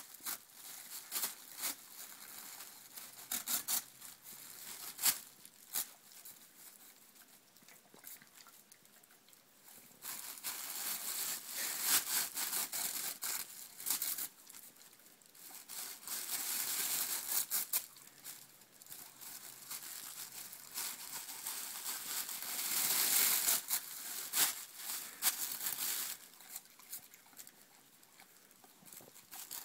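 Boxer dog tearing and chewing tissue paper: crinkling and rustling with sharp crackles, coming in several longer loud stretches with quieter rustling between.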